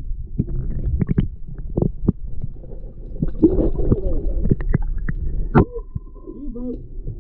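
Water moving around a camera held underwater: a dense, muffled low rumble with many short knocks and clicks, and a sharp knock about five and a half seconds in.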